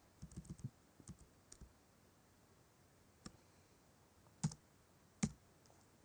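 Computer keyboard keystrokes, light clicks. A quick run of taps comes in the first second or so, then single key presses about a second apart.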